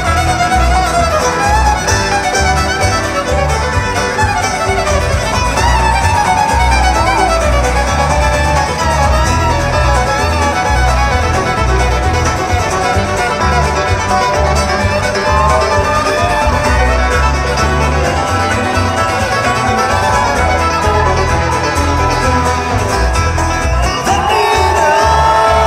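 Amplified fiddle taking a fast, shredding bluegrass solo over a loud live band with a steady bass pulse, heard through a concert PA. A long held higher note comes in near the end.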